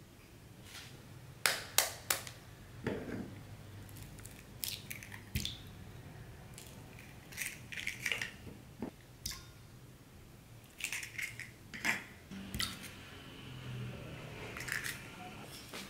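Eggs cracked one after another on the rim of a ceramic bowl: sharp taps followed by the crackle of the shells being pulled apart. There are several separate clusters, the loudest taps coming in quick succession near the start.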